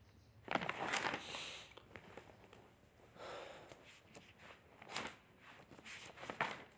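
Scattered rustles and knocks with no speech. A longer rustling burst comes about half a second in, then single sharper knocks every one to two seconds.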